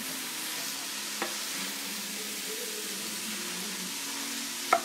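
Shredded cabbage and carrots sizzling in a stainless steel pot while a wooden spoon stirs them: a steady frying hiss, sautéing the vegetables before any liquid goes in. A faint click about a second in and a sharper one near the end.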